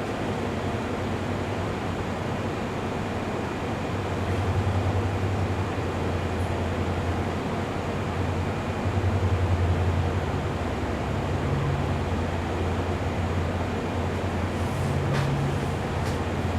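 Electronic pink noise: a steady, even hiss across the whole range, with a low hum swelling in about four seconds in and a few faint clicks near the end.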